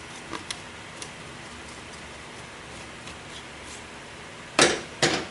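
Dust being cleaned off a computer motherboard: a few faint light clicks and taps, then two short, loud rushing strokes about half a second apart near the end.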